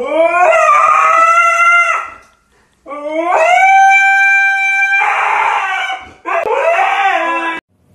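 A husky howling: three long howls, each sliding up in pitch and then held, the last one dropping away at the end.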